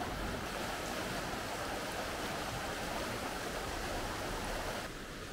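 Rushing mountain stream running over rocks, a steady wash of water. It drops in level about five seconds in.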